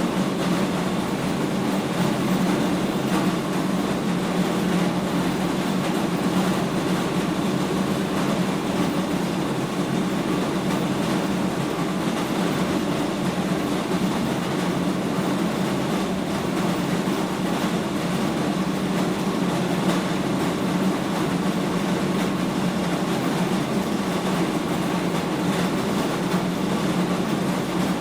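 Animal feed mill machinery running with a steady, even low hum and rumble.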